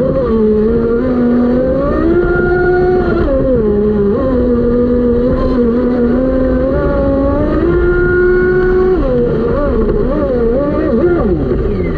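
Electric brushless motor of an RC speedboat running on a 6S LiPo, its whine stepping up and down in pitch as the throttle changes and wavering quickly near the end, over a steady rush of water and wind past the hull.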